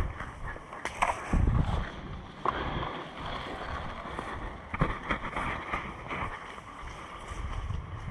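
Movement noise from a player on the move, with wind buffeting the microphone and a few sharp clicks or snaps; the loudest rumble comes about a second and a half in.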